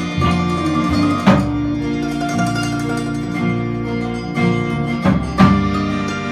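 Live band playing an instrumental passage of a bluegrass-style song, led by plucked acoustic strings over sustained notes, with a sharp hit about a second in and two more near the end.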